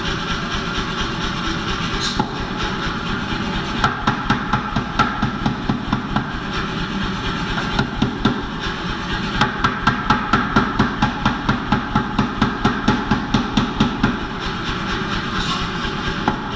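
Power hammer striking a hot damascus billet in runs of even, rapid blows, about three to four a second, the longest run in the second half. A steady mechanical hum runs underneath.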